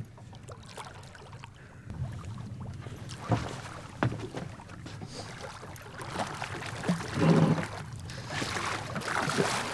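Water sloshing and splashing beside an aluminium boat as a hooked lake sturgeon is fought at the surface, with the splashing heaviest near the end. Two sharp knocks come a few seconds in.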